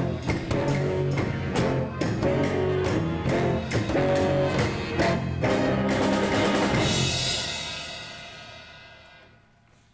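School pep band of brass, saxophones and drums, with drum kit, bass drum and snare, playing a short loud passage that starts abruptly with regular drum hits. The band stops about seven seconds in and the sound rings out and fades over the next two seconds.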